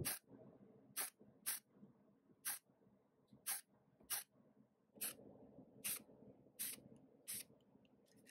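Aerosol spray-paint can giving short bursts of spray, about ten quick hisses roughly a second apart, over a low steady background hum.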